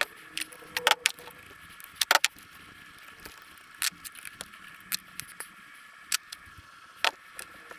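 Scattered light metallic clicks and clinks, about ten, irregularly spaced, with a quick pair about two seconds in, as the parts of a dismantled car alternator are handled.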